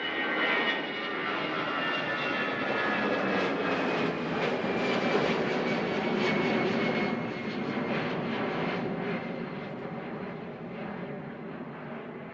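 Jet airliner's engines at takeoff thrust, a heavy rushing noise with a high whine that slowly falls in pitch as the aircraft passes. The noise is loudest in the middle and fades over the last few seconds as it climbs away.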